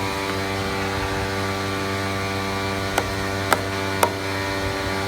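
A steady electrical hum runs throughout. About three seconds in come three sharp knocks about half a second apart, the middle one the loudest, as a heavy weight is set down on the freshly glued plywood board.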